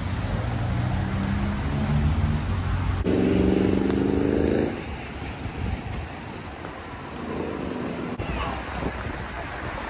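Street traffic on wet roads: a motor vehicle's engine running close by with a steady hum, loudest for a couple of seconds about three seconds in, then dropping away, over a constant hiss of traffic noise.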